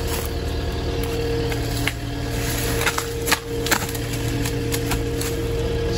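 Engine idling steadily, with a few sharp snaps and crunches of footsteps on brush and dry sticks around the middle.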